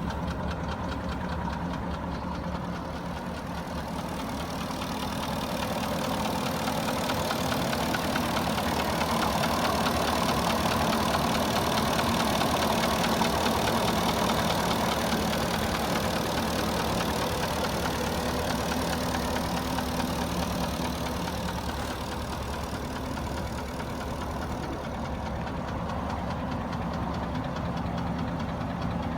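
Porsche Cayenne 4.5-litre V8 engine running warm at idle with a steady knocking. The knock is piston slap. The engine gets somewhat louder for a stretch in the middle.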